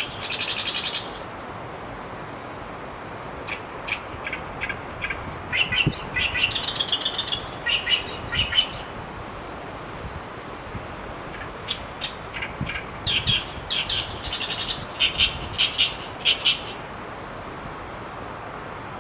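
Asian brown flycatcher singing: phrases of thin, high, quickly repeated notes and twitters, separated by pauses of a few seconds.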